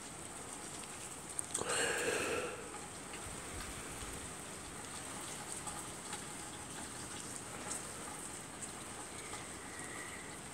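Steady rain falling during a thunderstorm, an even hiss, with a brief louder sound about two seconds in.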